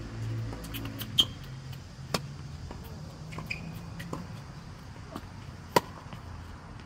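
Tennis ball struck by rackets and bouncing on a hard court during a rally: several sharp pops, the loudest about a second in and again near six seconds.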